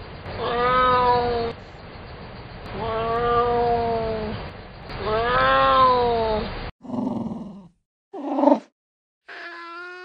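Ocelot yowling: three long, meow-like calls, each rising and then falling in pitch, over a steady hiss. After an abrupt break come two short, lower calls, and a different cat call begins near the end.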